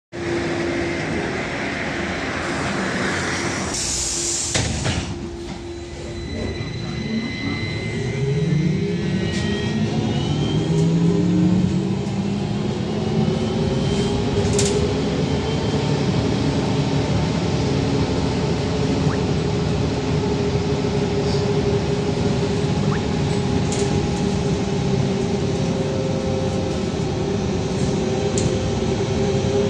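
VMZ-5298.01 trolleybus under way: the electric traction motor's whine rises in pitch as the trolleybus gathers speed, then settles into a steady hum over road noise. A short loud rush of noise comes about four seconds in.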